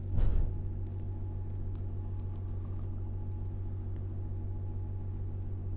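Steady low hum with a buzzy string of overtones, with a short soft swish about a quarter of a second in and a few faint ticks later.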